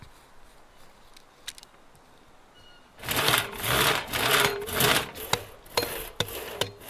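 Two-man hand saw cutting through a log on a sawhorse: rhythmic rasping strokes that start suddenly about three seconds in, with sharp knocks from an axe chopping wood in between.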